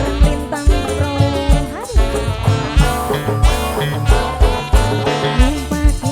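Loud dangdut-style music with a steady heavy bass-drum beat about twice a second and a wavering melody line over it.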